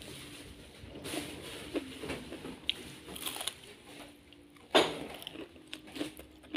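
Crispy batter-fried corn fritter being bitten and chewed: irregular crunching and crackling, with one loud sharp crunch near the end.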